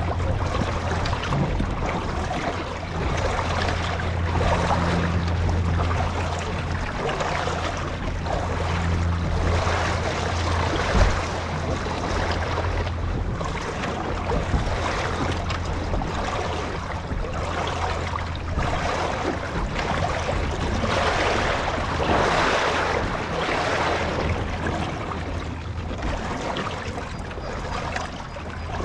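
Water rushing past a moving boat, swelling and easing every second or two, over a steady low hum, with wind on the microphone.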